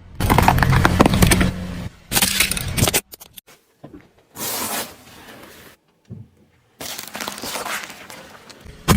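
Objects cracking and crunching as they are crushed under a car's tyre: several separate stretches of crackling, each starting and stopping abruptly.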